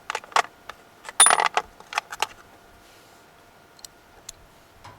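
Small metal parts clinking and rattling as they are rummaged through by hand, with a dense flurry of clinks about a second in and a few lighter ticks towards the end.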